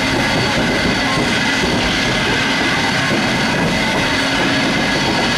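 Western Maryland No. 734, a 2-8-0 steam locomotive, standing on a turntable as it is turned: a steady hiss of steam with a faint high whine and a low hum.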